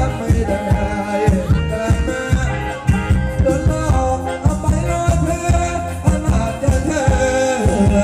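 Thai ramwong band music with a steady, even beat under a melody line, playing for the dancers.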